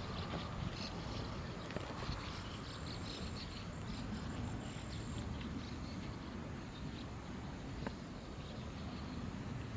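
Outdoor background noise: a steady low rumble with faint scattered ticks, thinning out after the first few seconds.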